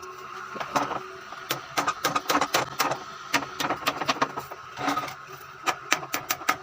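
Hammer striking wood or a nail in a quick, uneven series of sharp knocks, about two to three blows a second.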